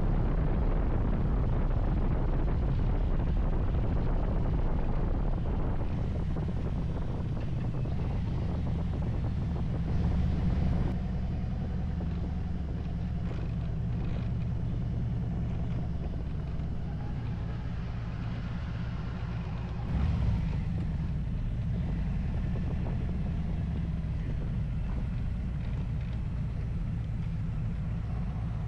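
Motorcycle engine running steadily while riding, with wind buffeting the microphone. It briefly gets louder about ten seconds in and again about twenty seconds in.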